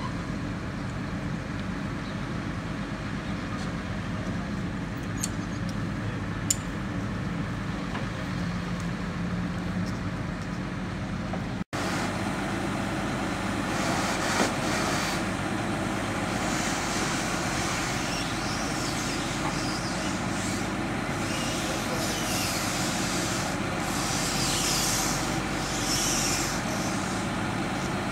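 Lorry's diesel engine running steadily while its Palfinger loader crane works, with patches of hissing in the second half.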